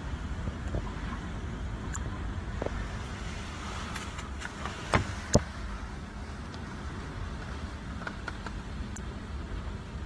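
Hurricane winds blowing in a steady low rushing rumble. About five seconds in there are two sharp knocks a moment apart, the loudest sounds here.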